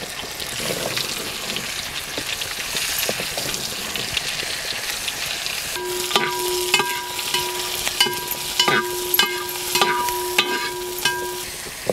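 Onions, green chillies, cashews, whole spices and fresh mint sizzling in hot oil and ghee in a large aluminium pot. From about halfway, a steel ladle stirs and knocks against the pot again and again, with a ringing metallic tone under the knocks until near the end.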